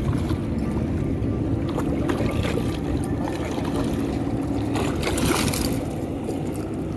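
A hooked dorado thrashing and splashing at the water's surface beside the boat, with a louder splash about five seconds in, over a steady low rumble.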